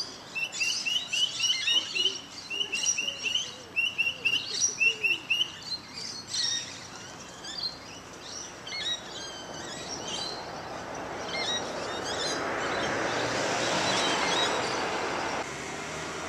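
Birds chirping in quick, repeated rising calls, busiest in the first half. Later a car passes on the road: a rushing tyre and engine noise swells to its loudest a little before the end, then cuts off suddenly.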